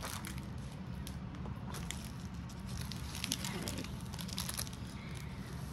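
Clear plastic packaging of a diamond-painting kit crinkling faintly in scattered bursts as it is handled and set aside, over a low steady hum.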